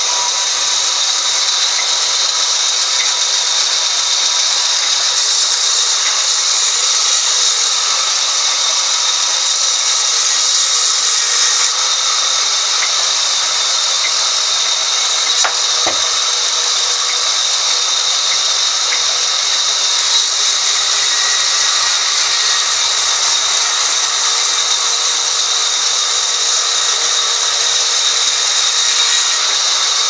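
Band sawmill running and cutting lengthwise through a log: a steady loud hiss of the blade in the wood with a constant high whine. A single sharp knock about halfway through.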